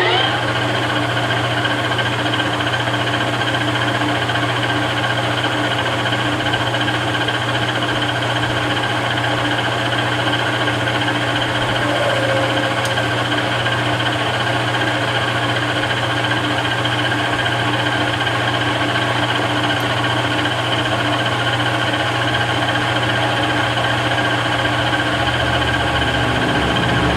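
Webb Whacheon WL435 17x40 gap-bed lathe running steadily at a little over 1,000 RPM, its geared headstock giving an even hum and whine while it takes a light skim cut along a steel bar. A deeper hum joins near the end.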